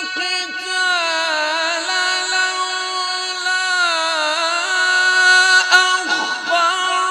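A reciter chanting the Quran in melodic tajweed style. The voice holds long drawn-out notes and ornaments them with slow rises and falls in pitch.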